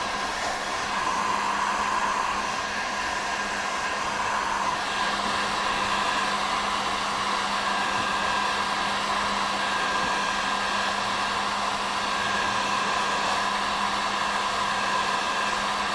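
Electric heat gun running steadily, a constant blowing noise with a motor hum, as it heats HDPE patch plastic and the kayak's hull to soften them for bonding.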